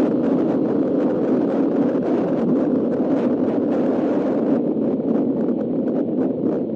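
Steady wind rush over the microphone of a Suzuki Raider R150 riding at cruising speed, mixed with its engine and road noise.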